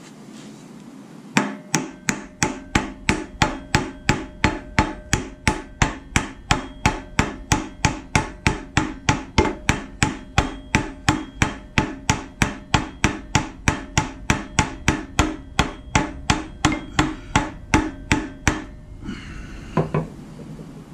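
Hammer blows driving the harmonic balancer onto the crankshaft snout of a Jeep 4.0 inline-six, about two to three even strikes a second for some seventeen seconds, with the metal ringing between blows. A single lighter knock comes near the end.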